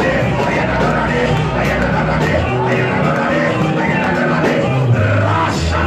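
Live church worship music played by a band, with a steady beat and a bass line moving between held notes.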